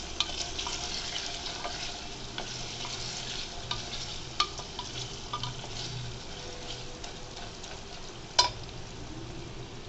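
Wooden spatula stirring and scraping mutton that sizzles in an open aluminium pressure cooker: the cooking water has cooked off and the meat is now frying in the pan. A single sharp knock stands out about eight seconds in.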